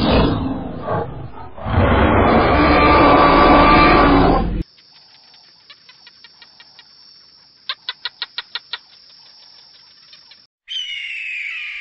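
Animal calls in three abrupt cuts. First a loud, harsh, noisy call lasts about four and a half seconds. Then comes a much quieter stretch of quick chirps, with a rapid run of about eight sharp ticks, and a loud squawk starts near the end.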